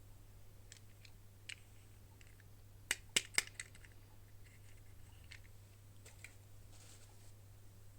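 Hands handling plastic toy packaging in an ASMR unboxing: scattered small clicks and taps, with a quick run of sharper, louder clicks about three seconds in. A faint steady low hum lies underneath.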